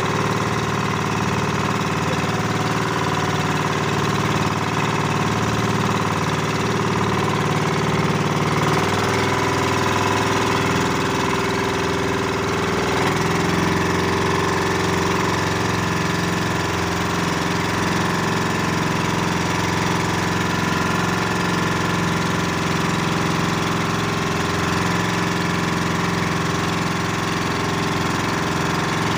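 Boat's diesel engine running steadily, its note shifting slightly about nine seconds in and again a few seconds later.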